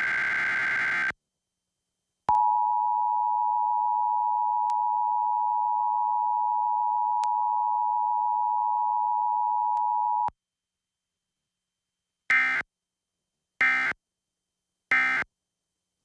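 Emergency Alert System test tones. A warbling digital header data burst ends about a second in. Then the steady two-tone attention signal sounds for about eight seconds. Three short end-of-message data bursts follow, about a second and a quarter apart.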